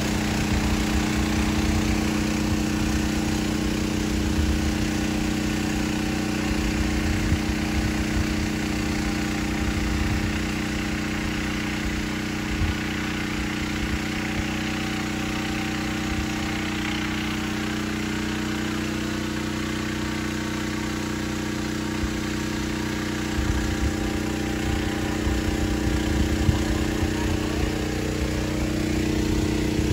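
DJI Agras T30 six-rotor crop-spraying drone in flight, its rotors giving a steady, loud hum with two strong tones that hold their pitch throughout.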